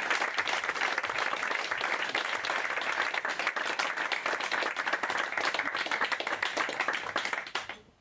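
Live audience applauding with steady clapping, which fades out near the end.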